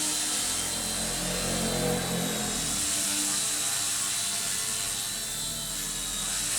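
Small electric C119 four-channel RC helicopter running in a test flight: a steady whir of the rotor and motor with a high motor whine, swelling a little about two seconds in.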